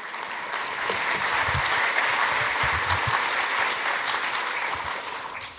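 Audience applauding: many hands clapping together, swelling in at the start and dying away near the end.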